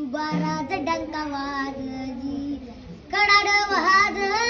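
A child singing a Marathi song, holding long notes that bend in pitch, growing louder about three seconds in with a wavering vibrato.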